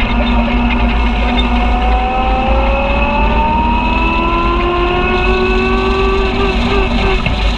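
Side-by-side UTV engine running at trail speed. Its whine holds steady and then climbs gradually in pitch through the middle as the machine accelerates, over a steady low rumble.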